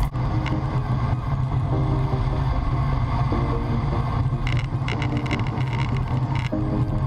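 Wind rushing over an action camera's microphone, with the road bike's tyres on the asphalt, as it coasts downhill at about 55–64 km/h with no pedalling. The rushing is steady throughout, with a faint hum that comes and goes.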